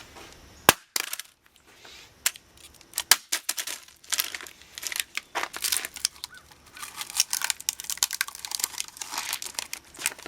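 Plastic Tupperware container cracking and crunching as a frozen block of ice is forced out of it: an irregular run of sharp cracks and snaps, the loudest a little under a second in.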